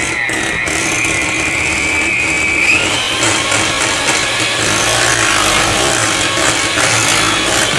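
Electric hand mixer running at a turned-up speed, its beaters churning thick muffin batter in a glass bowl; the motor whine steps up in pitch about three seconds in.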